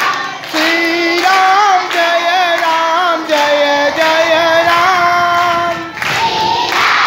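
A single high voice sings a drawn-out melodic line with wavering, ornamented pitch for about five seconds. Near the end it stops and crowd noise comes back.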